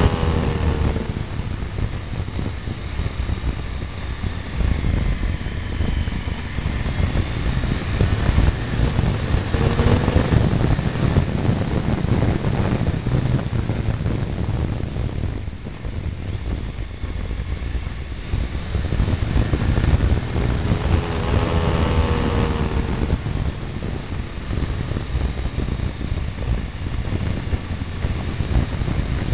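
Triumph Tiger 955i's three-cylinder engine running on the move, mixed with heavy wind rumble on the mirror-mounted microphone; the engine pitch glides audibly right at the start and again about three-quarters of the way through.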